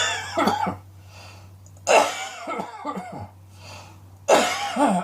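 A person coughing in fits of several harsh, voiced coughs: one fit at the start, another about two seconds in, and a third near the end, over a steady low hum.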